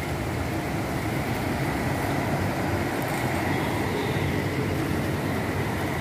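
Diesel coach engine and road noise as a double-decker intercity coach drives past, a steady rumble with a faint high whine.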